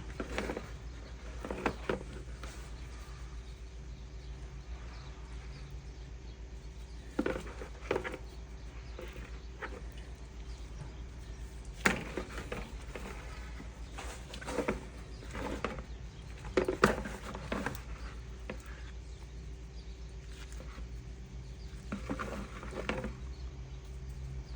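Garlic powder being shaken from its container onto a raw parrot fish, heard as scattered short clusters of taps and rustles, over a steady low hum.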